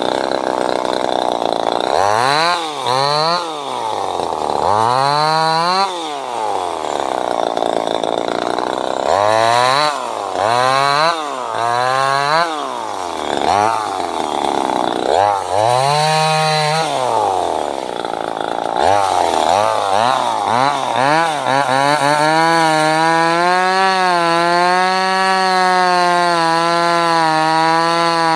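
Small 25cc two-stroke top-handle chainsaw engine revved up and down repeatedly, dropping back toward idle between blips. For the last several seconds it is held at high speed and runs nearly steadily.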